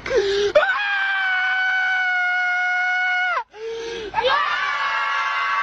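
Two long, high-pitched screams. The first begins as a short lower cry, jumps up and holds steady for about three seconds before breaking off. The second slides up higher and holds.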